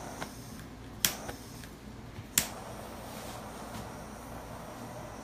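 Two sharp clicks about a second and a half apart from the push-button igniter of a handheld crème brûlée torch, over a steady hiss.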